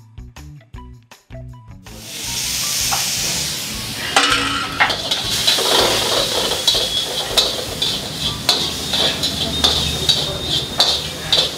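Background music for about two seconds, then food frying in hot oil starts sizzling abruptly. From about four seconds in, a metal utensil scrapes and clicks against the pan as the food is stirred.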